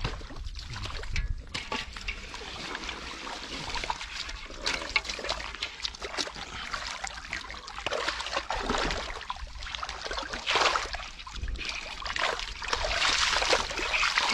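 Hands sloshing and splashing in shallow muddy water while groping through the mud for fish, in irregular splashes and trickles that grow busier near the end.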